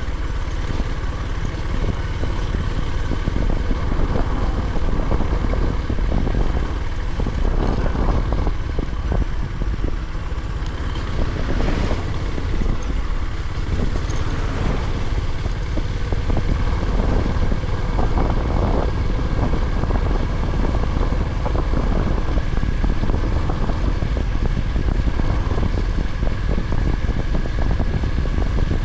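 Honda GB350's air-cooled 348 cc single-cylinder engine running at a steady pace while riding, with wind rushing over the microphone.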